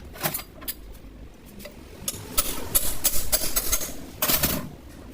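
Mechanical clicking and knocking in quick bursts: a few scattered clicks at first, then a dense, louder rattle from about two seconds in, ending in a strong burst near the end.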